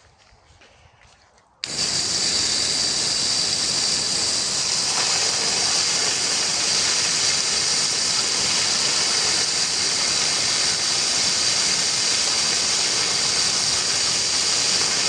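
An air blower switches on abruptly about two seconds in and runs with a steady, loud rushing hiss of blown air.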